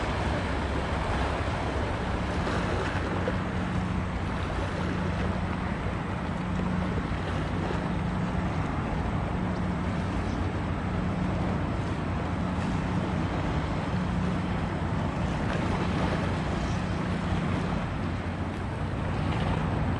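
A steady low engine hum under a constant wash of wind and water noise.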